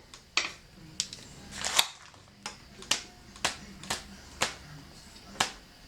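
Torque wrench with a 5 mm socket clicking on the crank arm pinch bolts: about nine sharp clicks, unevenly spaced, as the bolts are brought to final torque.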